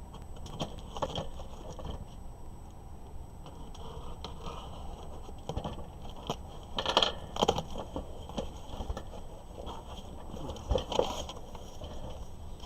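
A shipping box being opened by hand: irregular crinkling, crackling and scraping of cardboard and packing material, with a cluster of louder crackles about seven seconds in.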